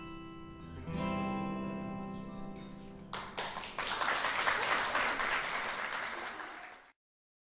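Acoustic guitars strike a final chord about a second in and let it ring. Applause follows from about three seconds in and is cut off abruptly near the end.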